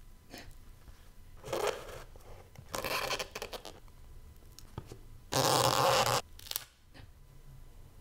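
Crusty baguette crust crackling and tearing as it is pulled apart and hollowed out by hand, in several bursts, the loudest and longest about five seconds in.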